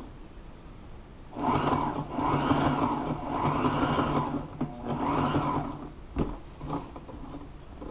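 Sewing machine stitching a seam through fabric, running in several short spurts for about four seconds, starting about a second and a half in. A few sharp clicks follow near the end.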